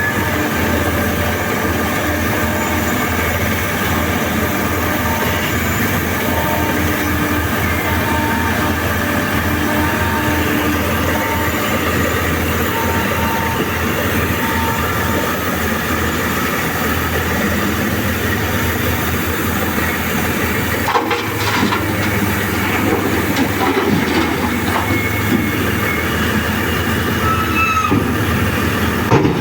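Heavy diesel mining machinery, a face shovel excavator at work loading a dump truck: a steady deep engine drone with a held hydraulic whine over it, and a few sharp knocks a little over two-thirds of the way through.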